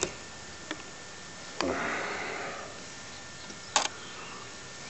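Metal barrel-bolt latches on a wooden nest-box lid being slid open with sharp clicks, a loud one near the start and a smaller one shortly after. Then comes a soft rush of noise as the lid is opened and a louder knock near the end.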